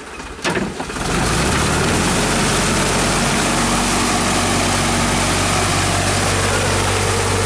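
Tractor engine running steadily: a constant drone that starts abruptly about a second in.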